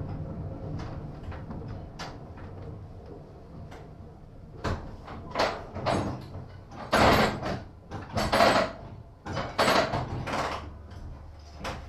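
1915 Ringhoffer tram standing at a stop: a low hum fades away over the first few seconds, then about seven short, loud clattering bursts follow in the second half.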